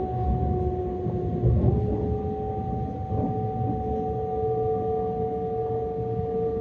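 Metra Electric gallery car running, heard from inside: a low rumble under a steady electric whine of two or three held tones from the traction equipment. The tones jump in pitch about one and a half seconds in, and the lower one then creeps slowly upward.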